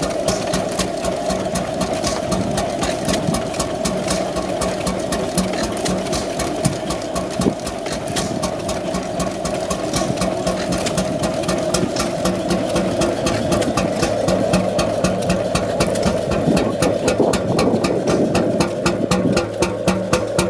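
Mietz & Weiss two-stroke stationary oil engine running at a steady speed with a regular, quick beat.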